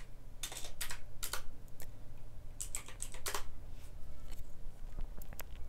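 Typing on a computer keyboard: irregular keystroke clicks in short runs with pauses between them.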